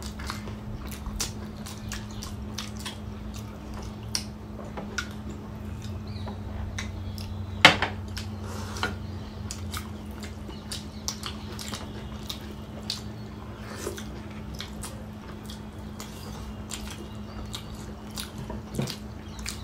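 Two people eating steamed pork momos by hand: chewing and wet lip-smacking mouth sounds, with many small clicks and one sharper click about eight seconds in, over a steady low hum.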